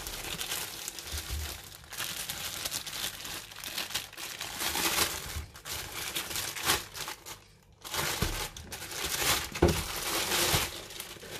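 Clear plastic bag crinkling and rustling as it is handled and pulled off a pair of boxing gloves, with a short lull about two-thirds of the way through.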